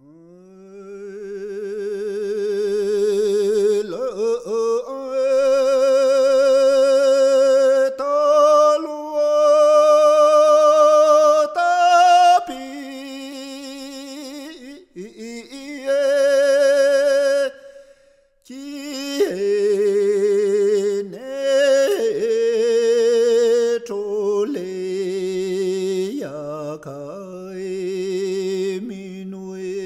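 A single voice singing unaccompanied in long, drawn-out held notes with a wavering vibrato and sliding changes of pitch, a slow stretch of a Tibetan drum-dance song. No drums are struck.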